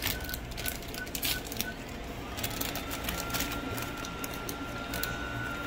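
Paper sandwich wrapper crinkling and rustling in short crackles. A short electronic beep repeats about three times a second through the first couple of seconds, then a steady high tone sounds.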